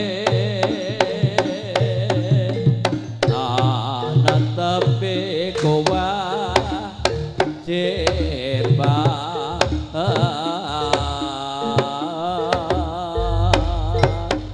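Jaranan ensemble music: a melody line with wavering pitch over drum strokes at about two a second, with deep bass tones underneath.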